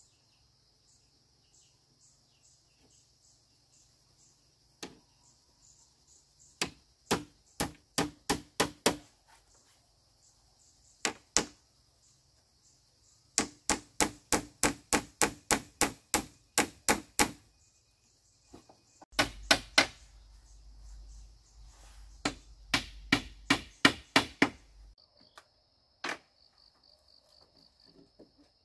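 Repeated sharp blows of a hand tool on bamboo, in three quick runs of about four strokes a second, over a steady chirping of insects.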